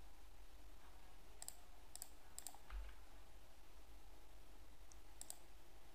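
A handful of faint computer mouse clicks, some single and some in quick pairs, over a low steady hum.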